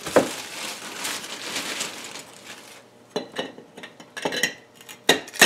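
A plastic bag of ice crinkling as it is handled, then from about three seconds in, ice cubes dropping into a glass mason jar with several sharp clinks.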